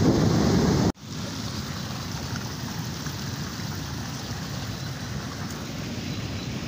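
Muddy flash-flood water rushing in a steady, even roar of noise. It cuts out for an instant about a second in and then carries on somewhat quieter.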